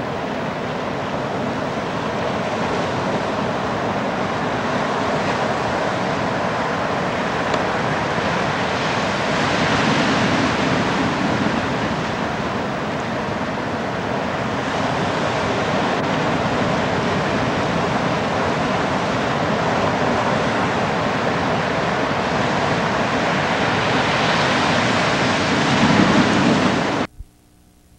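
Ocean surf breaking, with wind on the camcorder microphone: a steady rush that swells about ten seconds in and again near the end, then cuts off suddenly.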